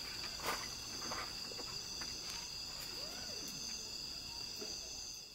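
Crickets chirping in a steady, continuous chorus of high tones.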